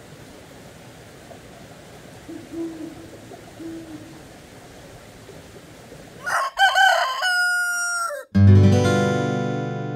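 Low steady hiss with two faint owl hoots, then about six seconds in a rooster crows for about two seconds. Right after it, a strummed acoustic guitar chord rings out, the loudest sound here, and slowly fades.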